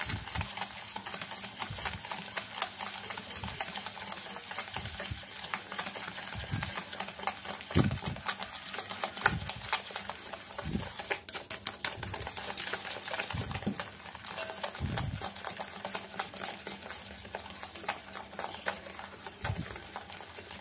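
Wire whisk beating a still-runny mixture of instant coffee, sugar and warm water in a glass bowl by hand: a fast, steady clatter of whisk wires against the glass, with occasional dull knocks. This is the early stage of whipping dalgona coffee, before the mixture turns light and frothy.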